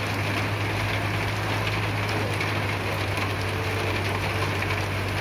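Heavy machine engine running steadily: a constant low hum under a broad even noise.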